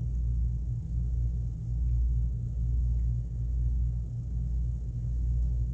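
A steady low rumble and hum, with nothing higher-pitched over it.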